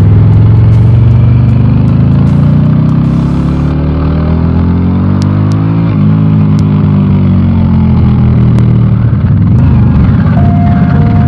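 2021 Harley-Davidson Pan America's 1250 Revolution Max V-twin running through a Screaming Eagle exhaust on the move. The engine note climbs with the revs for a couple of seconds, then falls away slowly as it eases off.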